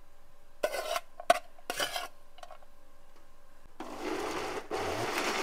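A few knocks and clatters of a mixer-grinder jar being handled, then the electric mixer grinder starts about four seconds in and runs, grinding boiled dried brahmi leaves into a paste. It stops for an instant just after it starts.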